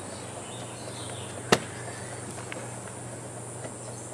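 A paint-dipped rubber koosh ball dropped onto poster board, landing with one sharp splat about a second and a half in, followed a second later by a much fainter tap.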